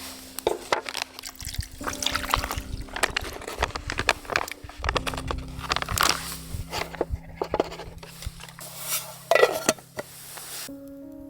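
Liquid splashing and bubbling in a cooking pot over a wood fire, in irregular crackling spurts that stop shortly before the end, with soft background music underneath.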